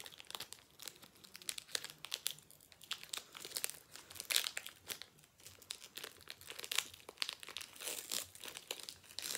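Foil Pokémon booster pack wrapper crinkling and tearing as it is opened and handled, in irregular crackles throughout.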